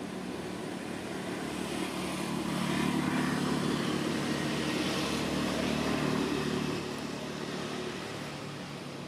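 A passing engine drone that swells over a few seconds, holds near the middle and slowly fades away.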